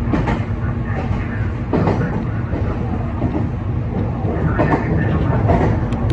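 Meitetsu 3600-series electric commuter train running at speed, heard from inside the front car: a steady rumble of wheels on rail with a few clacks over rail joints.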